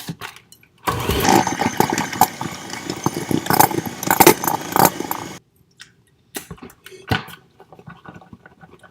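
Electric mixer running for about four and a half seconds, beating cookie dough with a rattling whir, then cutting off abruptly. A few light knocks follow.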